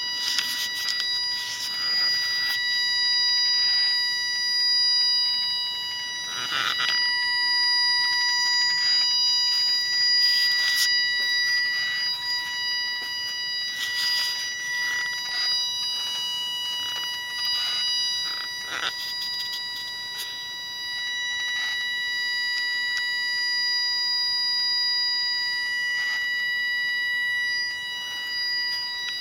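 Steady, high-pitched whine from the engine bay of a 2010 Nissan 370Z: one constant tone with overtones above it, with irregular bursts of noise over it.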